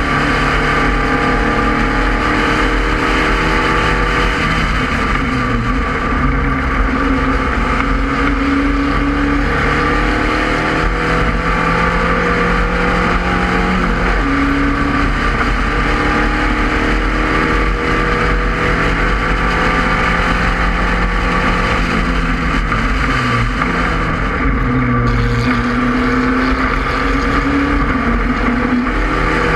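Spec Racer Ford's four-cylinder engine heard onboard at racing speed, its pitch climbing and dropping back several times, with steady wind rush across the open cockpit.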